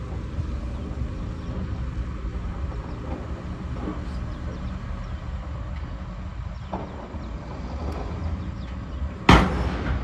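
Heavy dump truck diesel engines running with a steady low rumble. A single loud, sharp bang comes about nine seconds in, with smaller knocks before it.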